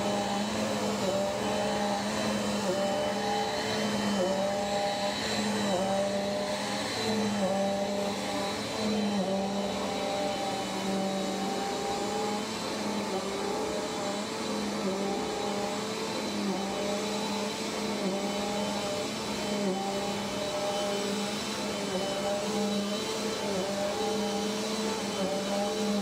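Bissell upright vacuum cleaner running steadily on carpet, its motor hum dipping briefly in pitch every second or two.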